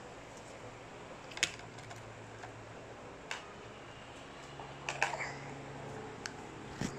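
Scattered sharp plastic clicks and taps, about five of them, as small plastic toy figurines are handled and set down inside a plastic magnetic-tile playhouse.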